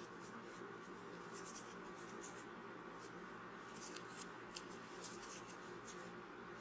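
Faint scratching and rustling of a metal crochet hook working yarn through stitches, in short irregular strokes, over a low steady hum.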